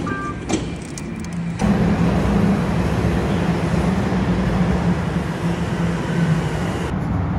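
A motor vehicle running: a steady low engine hum with road noise, which becomes louder and fuller about a second and a half in.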